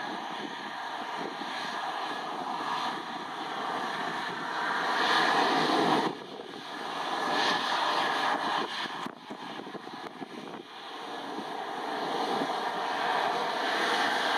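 Embraer 175 jet airliner during pushback: a steady rushing jet noise with a faint tone through it, mixed with wind on the microphone, swelling and then dropping off sharply several times.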